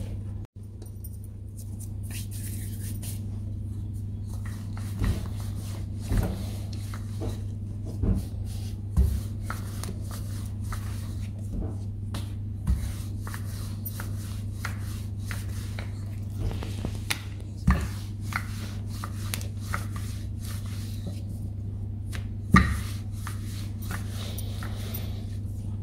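Wooden rolling pin rolling out yeast dough on a floured countertop: irregular soft knocks and thumps as the pin and dough are pressed and shifted, a few of them sharper, the loudest near the end. A steady low hum runs underneath.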